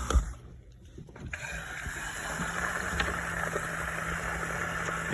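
KitchenAid dishwasher running a wash cycle: water spraying inside the tub over a steady motor hum. A single thump right at the start and a brief dip in the sound follow before the steady running resumes.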